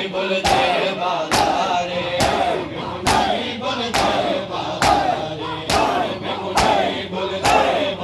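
A crowd of men doing matam, slapping their bare chests in unison about once a second, nine strokes. Between the strokes the crowd calls out together in rhythm.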